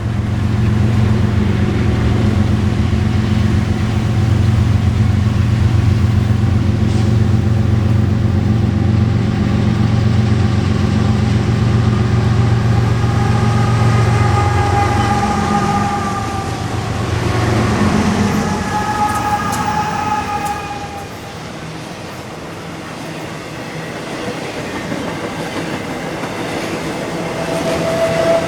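BNSF intermodal freight train passing: the diesel locomotives' engines drone loudly for roughly the first half. They give way to the rolling railcars, with high-pitched wheel squeal rising and fading through the middle.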